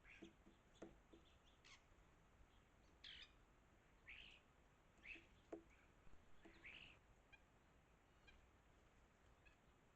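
Faint bird chirps: about seven short calls spread over the first seven seconds, with a few soft taps among them, then only tiny ticks.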